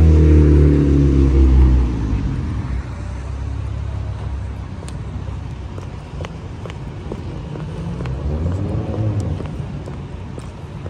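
A motor vehicle passing close by on the street, its engine pitch falling as it goes past, then fading after about two seconds. Quieter traffic noise follows, with another vehicle passing about eight seconds in.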